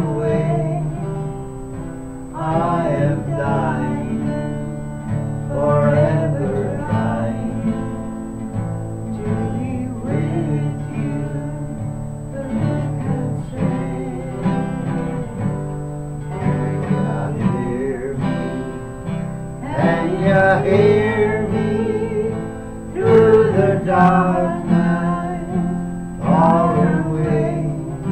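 Acoustic guitar accompanying a man and a woman singing a song together, sung lines coming in phrases over the chords.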